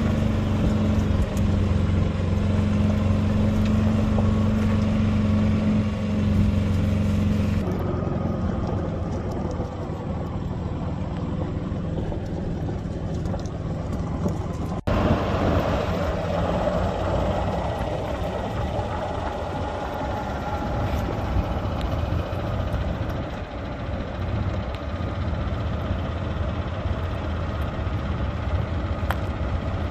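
Yamaha Drive2 gas golf cart driving, heard from its rear seat: a steady low engine hum with the tyres crunching over gravel. After two abrupt changes in the first half, the hum gives way to mostly rolling tyre and road noise.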